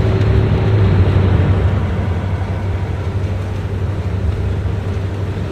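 A car driving along: steady road and engine noise with a low hum.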